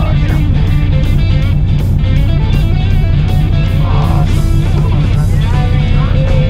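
Background music with guitar over a strong bass line and a steady beat.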